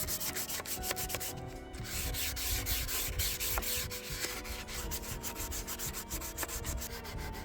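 Hand sanding with 320-grit sandpaper on the radio's wooden case, quick back-and-forth strokes rubbing off paint specks. There is a brief pause about a second and a half in.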